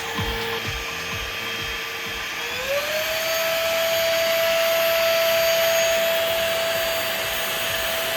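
Bossman Kaden Pro K3 cordless vacuum cleaner running with a steady whine. About two and a half seconds in, its motor speeds up: the whine rises in pitch, gets a little louder and holds at the higher pitch.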